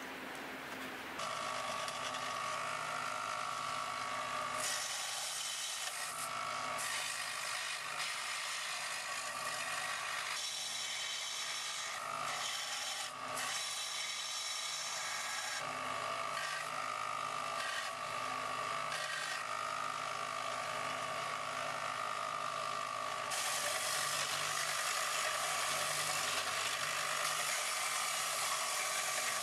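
Belt grinder running with a steady whine while a forged wrought-iron and 1084 steel knife blade is held against the moving belt, giving a rasping grind that swells and eases as the blade is worked, and gets louder over the last several seconds. The first second is the faint crackle of the forge fire.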